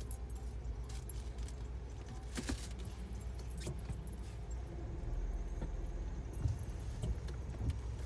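Car interior with a steady low hum, like an idling engine, and scattered light clicks and taps at irregular moments.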